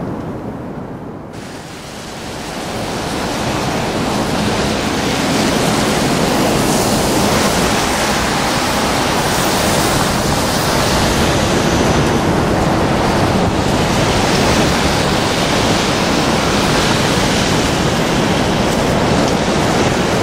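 Steady rushing roar of Niagara's falling water, which drops briefly at the start, then builds back and holds even from about five seconds in.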